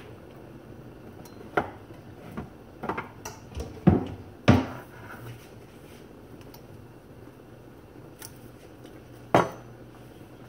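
Kitchenware being handled: a cluster of sharp clinks and knocks in the first half, the loudest about four and a half seconds in, and one more knock near the end.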